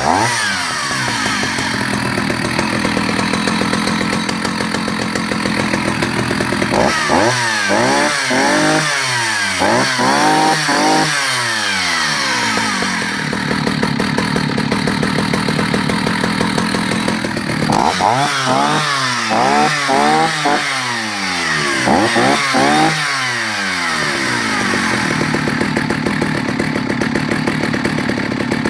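Vintage Husqvarna L65 65 cc two-stroke chainsaw running at idle, blipped up to high revs several times in two quick series, dropping straight back to a steady idle after each.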